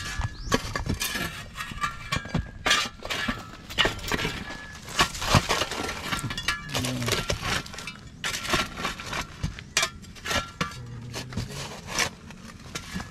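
Shovel and steel digging bar chopping and scraping into dry, clumpy soil: many irregular sharp strikes, with dirt clods breaking and crumbling.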